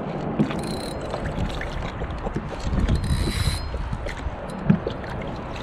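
Spinning reel being wound in two short bursts, bringing in a small hooked roach, over wind on the microphone and water lapping against the kayak.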